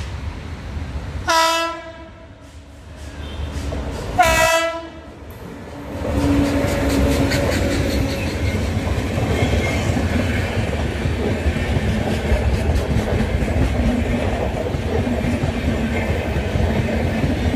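Indian Railways locomotive sounding two short horn blasts about three seconds apart as it approaches. From about six seconds in, the locomotive and its passenger coaches pass close by with a steady rumble and rhythmic clicking of wheels over the rail joints.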